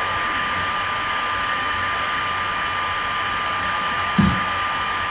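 Steady background hiss with a thin constant whine running through it, and a brief murmur from a voice about four seconds in.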